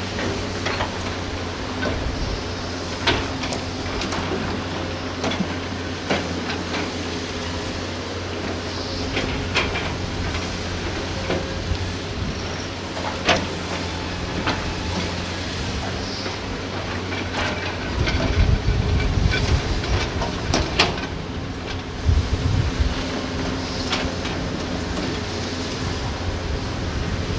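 Hydraulic excavators' diesel engines running steadily, with scattered sharp clacks as an excavator bucket loads sand and stones into a dump truck bed. A louder low rumble comes in about two-thirds of the way through.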